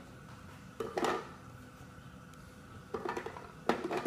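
Peeled garlic cloves dropped by hand into the plastic bowl of a small food processor, landing with several light knocks against the plastic: a couple about a second in and a cluster near the end.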